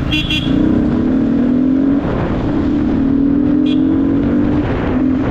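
Yamaha R15's single-cylinder engine pulling from the rider's seat, its pitch climbing slowly, breaking off about two seconds in and again near the end before picking up again as the throttle and gears change. Steady wind and road rumble run underneath.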